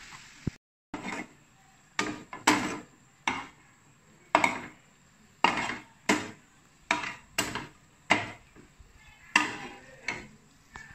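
A spatula knocking and scraping against a nonstick frying pan about a dozen times at irregular spacing, starting about a second in, while sweet-potato doughnuts are tossed in thick caramelised sugar syrup.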